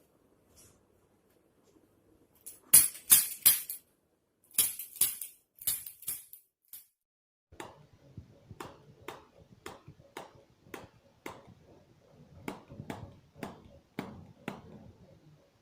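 Chiropractic activator adjusting instrument firing sharp clicks: loud quick groups about three and five seconds in, then a steady run of softer clicks about two a second.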